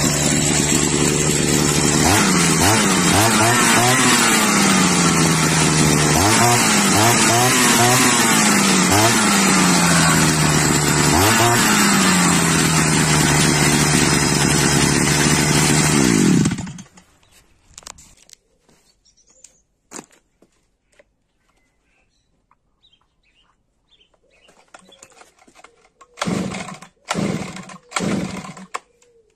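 Chinese-made two-stroke brush cutter engine idling and revved up about five times, each rev rising in pitch and sliding back down to idle; the engine sound cuts off suddenly about sixteen seconds in. Near the end, three quick recoil-starter pulls on a second two-stroke brush cutter, cold, with the engine not catching.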